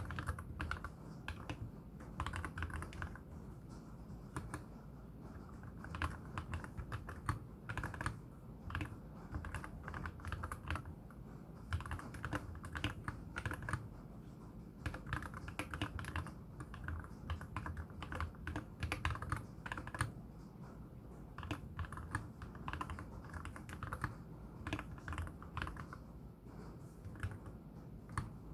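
Steady, continuous typing on a MelGeek Z70 Ultra mechanical keyboard with lubed KTT Wine linear switches and MA-profile spherical keycaps: quick, uneven runs of keystrokes with a few louder strikes. It has a deep, wood-block-like clack.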